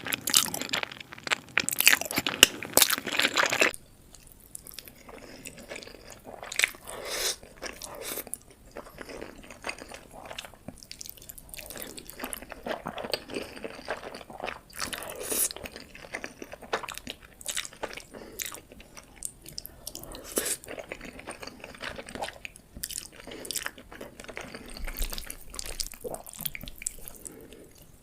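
Close-miked eating: loud, dense crunchy bites for the first few seconds, then it drops suddenly to quieter, wet chewing and mouth smacks of spaghetti for the rest.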